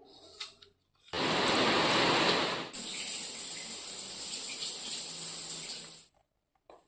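Steady rush of running water, starting suddenly about a second in, turning hissier about three seconds in, and stopping suddenly about six seconds in.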